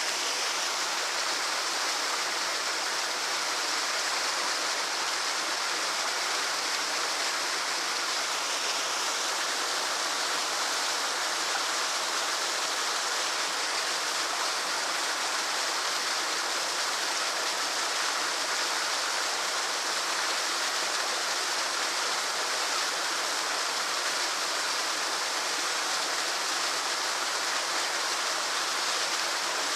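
Small waterfall pouring steadily into a lake: a constant, even rush of falling water, mostly in the upper range with little low rumble.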